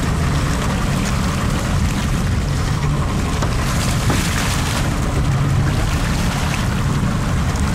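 Steady low hum of a fishing boat's engine, with wind on the microphone. About four seconds in comes a brief splash as a hooked striped bass thrashes at the surface beside the hull.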